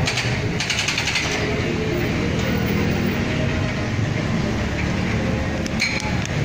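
Busy road noise with a steady engine rumble, broken by short bursts of rapid mechanical hammering, like a jackhammer at roadworks, about half a second in and again near the end.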